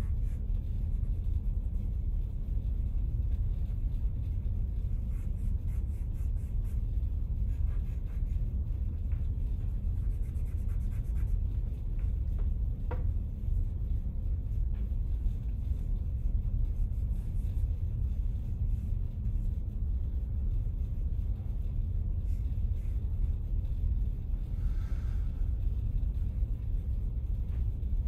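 Charcoal stick scratching and rubbing on drawing paper in short strokes, in spells during the first half, over a steady low rumble that is the loudest sound throughout.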